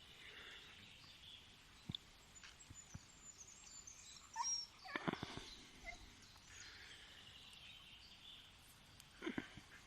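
Quiet outdoor ambience with a few soft knocks, a cluster about five seconds in and another near the end, and brief faint high animal calls around the middle.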